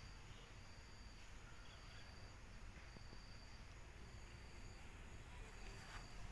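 Near silence with faint background noise and a thin, high insect chirp repeating about once a second.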